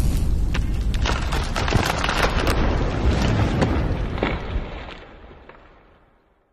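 Intro sound effect: a loud rumble with crackles, fading out steadily over about five seconds into silence.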